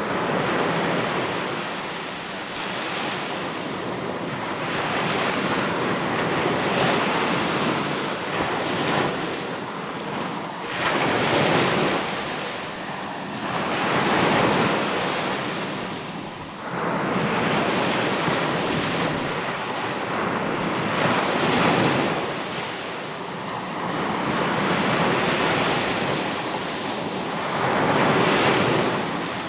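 Sea waves: a continuous rush of surf that swells and ebbs, with a louder surge every few seconds.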